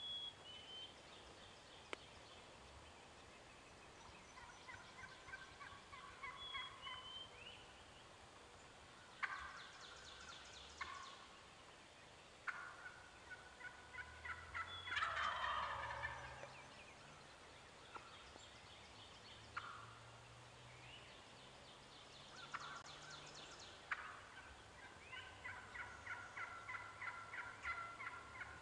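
Eastern wild turkeys calling, faint: gobbles several times, the loudest a falling rattle about halfway through, between runs of short repeated yelps from a hen.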